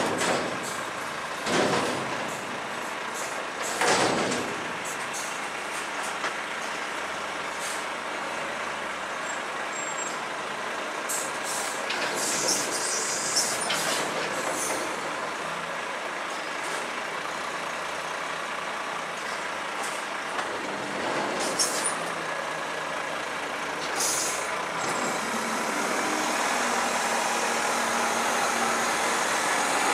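Garbage truck's diesel engine running, with a couple of sharp knocks early on and bursts of air hissing from its air system; the engine grows louder near the end as the truck moves off.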